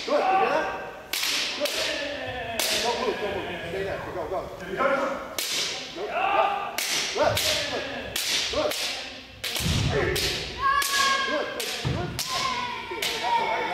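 Bamboo shinai sword strikes cracking on kendo armour, sharp and repeated every second or so from several pairs at once. Drawn-out kiai shouts come between the strikes, all in a large, echoing gym hall.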